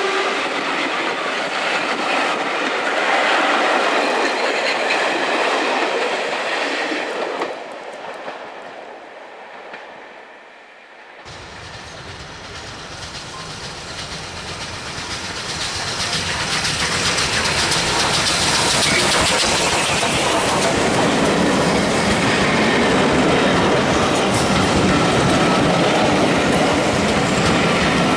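Steam-hauled passenger train running on the rails: first heard from aboard the moving coaches, wheels clattering over the track. About seven seconds in the sound drops away, then a steam train approaches, growing louder, and its coaches run past with wheels clattering on the rails.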